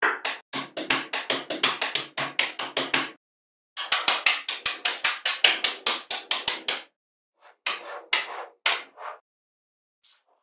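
Small magnetic metal balls clicking as they snap onto each other, in two quick runs of clicks about five a second, then a few scattered clicks near the end.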